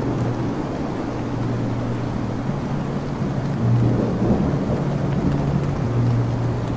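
Steady rain with low rolling thunder. A low held musical note sounds underneath and swells a little about four seconds in.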